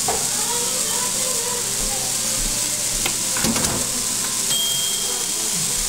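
Seasoned chicken sizzling steadily as it cooks on a grill, with a few clicks and knocks from handling it about three seconds in.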